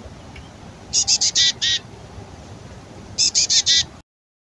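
Female black-capped chickadee giving the raspy, fledgling-like begging call: two quick bursts of four or five harsh notes, about two seconds apart. Females beg like this before nesting season, asking to be fed.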